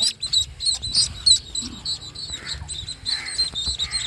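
Ducklings peeping, a rapid run of many short, high chirps overlapping one another, over a low rumble.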